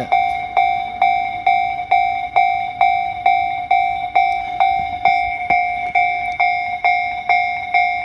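Japanese railway level-crossing warning bell ringing steadily, about two dings a second, each ding fading before the next. It is the sign that the crossing is closed for an approaching train.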